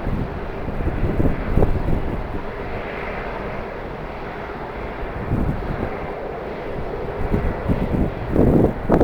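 Jet airliner engines running steadily, with gusts of strong wind buffeting the microphone, the heaviest gust near the end.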